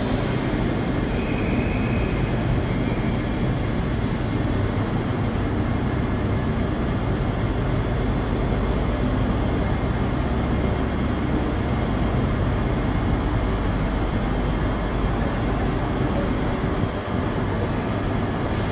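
Railway train running: a steady rumble with a low hum underneath.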